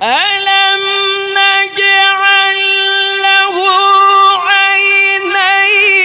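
A man reciting the Quran in a melodic, sung style, amplified through microphones. He glides up into one long, high held note and ornaments it with wavering turns in the middle and again near the end.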